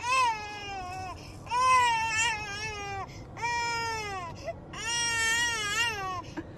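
A German Shepherd whining in long, drawn-out cries, four in a row with short breaths between, each starting high and sliding down in pitch.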